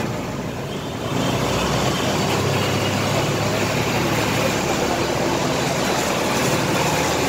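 Fire engine's engine running steadily to drive its water pump while a hose sprays, under a steady hiss that gets louder about a second in.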